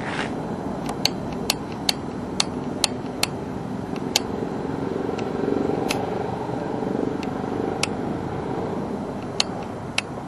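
A small airplane flying overhead at a distance, its engine a steady low drone that swells slightly a little past the middle. Scattered sharp clicks sound over it.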